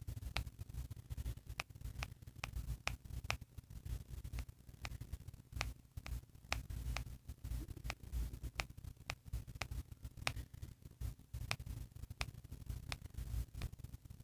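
Sharp clicks, irregular at roughly two or three a second, from pressing the channel up and down buttons of a walkie-talkie app on a phone's touchscreen, over a steady low rumble of handling noise.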